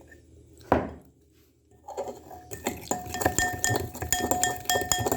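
A fork whisking softened chocolate in a bowl: a single knock about a second in, then from about two seconds a fast run of metal clinks against the bowl, which rings with a steady tone.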